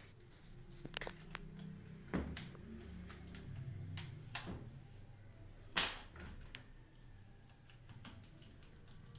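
Scattered clicks and knocks of plastic and metal parts being handled during reassembly of a washing machine's drain pump. The loudest knocks come about two seconds in and near the middle.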